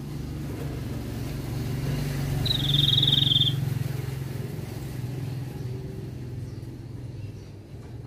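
A low vehicle engine rumble swells, is loudest about three seconds in, then fades. At its peak a bird gives one high, fast trill lasting about a second.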